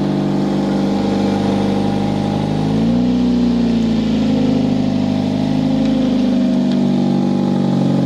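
2005 Hyundai Tucson's 2.0-litre four-cylinder engine idling steadily, its idle rising slightly about three seconds in and easing back down near six seconds, with the new alternator charging.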